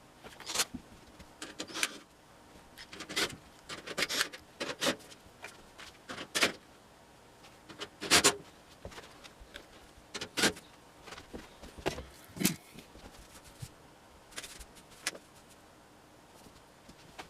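Old galvanized sheet-metal stove vent pipe being worked loose and pulled down: irregular clanks, rattles and scrapes of thin metal, some in quick clusters, the loudest about eight seconds in.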